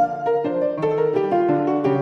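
Silent-film piano accompaniment: a piano playing a melody over chords, the notes changing several times a second.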